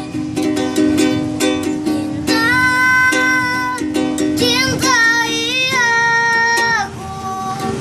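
A child busker singing a slow, plaintive melody over a strummed small string instrument. Strumming alone opens, then a long held note and wavering, ornamented notes follow.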